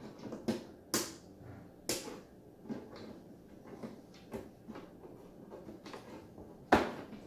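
Hard plastic Playmobil fire-station parts clicking and knocking as pieces are pressed and snapped onto the take-along case: a handful of separate sharp knocks, the loudest near the end.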